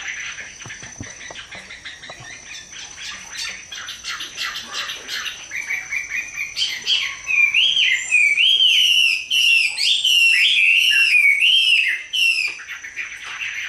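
Chinese hwamei, a tame fighting bird, singing: rapid chattering notes for the first several seconds, then a loud run of looping whistled phrases that rise and fall, stopping about a second before the end.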